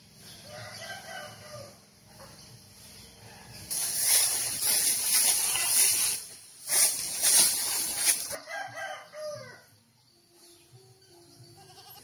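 Farm animals calling: short cries that bend in pitch near the start and again after about eight seconds. Between them is a loud stretch of rushing, hissing noise lasting about four seconds.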